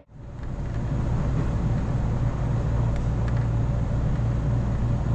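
Inside an electric train under way: a steady low rumble of wheels and motors that fades in at the start, with a few faint clicks.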